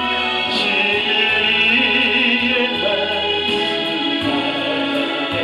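Gospel song: sung vocals over instrumental accompaniment, with long held, wavering notes.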